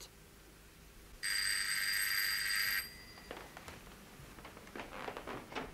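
A telephone bell rings once, a single steady ring of about a second and a half, followed by faint knocks and rustles.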